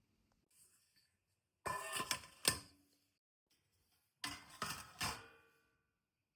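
Two bursts of hard items clattering and clinking, each a few quick knocks with a short ring after, like dishes or kitchen utensils being handled and set down.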